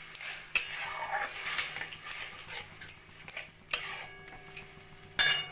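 Spoon stirring grated carrots and milk in a kadai, scraping and knocking against the pan several times over a soft hiss.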